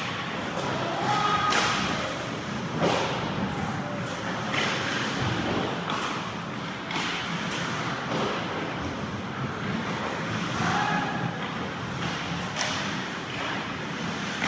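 Ice hockey play in a rink: scattered sharp knocks and thuds of puck, sticks and boards over a steady noisy wash of skates and arena sound, with a few brief shouts.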